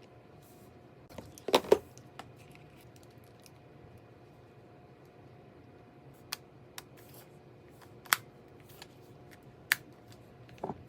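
Sharp clicks and taps from a hard console carrying case being handled close to the microphone. There is a quick cluster of loud ones about a second and a half in, then single clicks every second or two.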